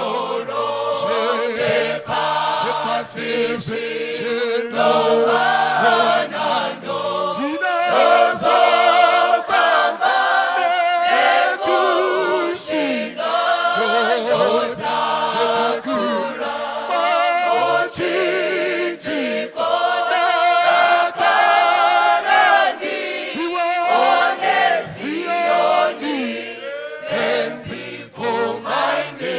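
A group of voices singing together in harmony, a choir or congregation, with wavering sustained notes.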